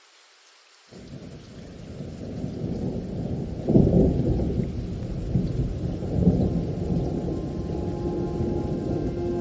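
Thunder rolling over steady rain. The low rumble breaks in suddenly about a second in, peaks loudest about four seconds in, and keeps rumbling. Near the end a few steady musical tones come in.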